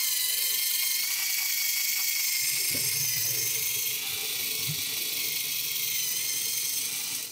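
Small LEGO electric motor driving a 9-to-1 gear reducer that works the owl model's wing-flapping linkage: a steady high whir of motor and plastic gears, with some low clatter from the mechanism around the middle. It cuts off suddenly just before the end.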